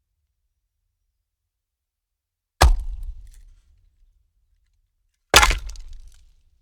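Two wooden logs dropped one at a time onto a woodpile, each a heavy knock followed by a short clatter of wood on wood that dies away within about a second; the first comes about two and a half seconds in, the second near the end.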